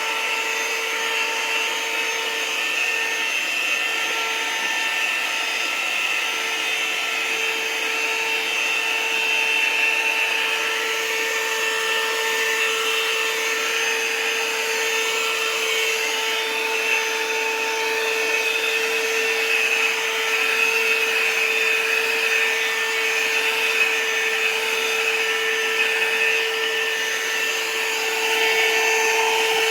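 Vacuum cleaner running steadily with a constant high whine over a rushing hiss, its nozzle being drawn through a dog's coat to suck up loose hair and dander.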